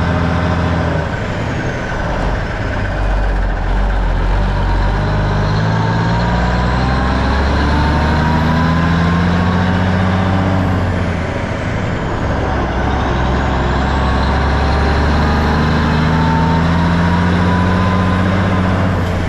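1984 Freightliner cab-over's Cummins diesel engine pulling a grain trailer and accelerating through the gears. The engine note climbs steadily, then drops back at each upshift, three times.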